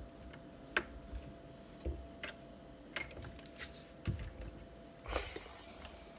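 Scattered light clicks and taps with a few low knocks and a brief rustle about five seconds in: hands handling a cupboard door and its magnetic child-safety lock.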